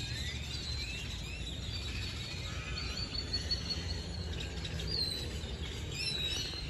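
Several birds chirping and calling, short rising and falling whistled notes overlapping one another, over a steady low background rumble.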